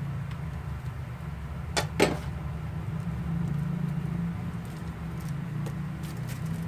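Two quick sharp knocks about two seconds in, as the seasoning box is set down, over a steady low background hum. A few faint ticks follow later as hands work the food in a foil-lined tray.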